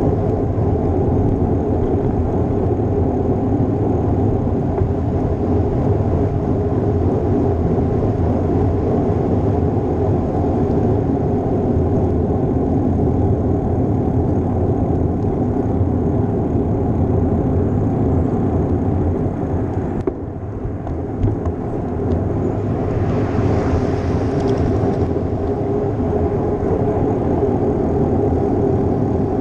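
Steady rush of wind buffeting an action-camera microphone on a moving bicycle, mixed with road and tyre noise. About twenty seconds in it drops for a moment with a few sharp clicks, and a brief hiss follows a few seconds later.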